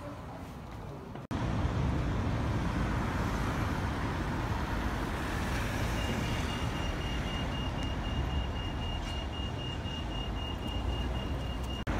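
Street ambience: a steady low traffic rumble. About halfway in, a rapid, evenly repeated high-pitched beeping joins it and runs until shortly before the end.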